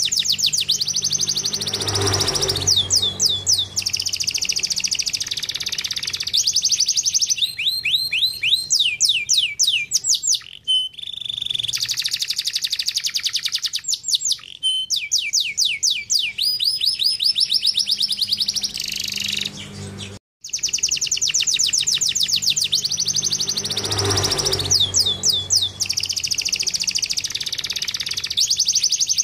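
Domestic canary singing: long runs of rapid trills and rolls, phrase after phrase, with a brief break a little past two-thirds of the way through before the song starts again.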